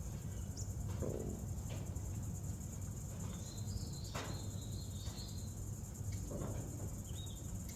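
Quiet background with a faint steady low hum, a thin high chirp lasting about two seconds around the middle, and a few faint light clicks.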